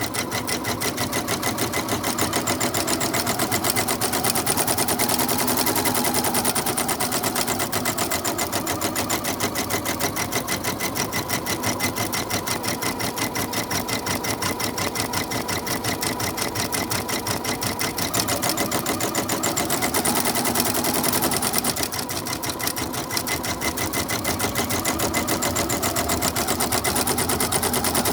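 Janome MB-7 seven-needle embroidery machine stitching out a design: a fast, even rattle of needle strokes, briefly a little softer about three quarters of the way through.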